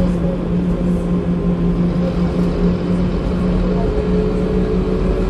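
Scania K230UB bus's five-cylinder diesel engine and drivetrain running at a steady drone with a constant low hum, heard from inside the passenger saloon.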